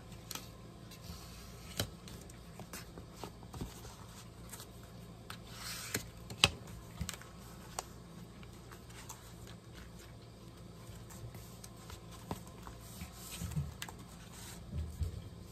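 Paper and card being handled and smoothed by hand: soft rustles and light scattered taps and clicks. There is a short swish and then a sharper click about six seconds in, and a couple of low thuds near the end.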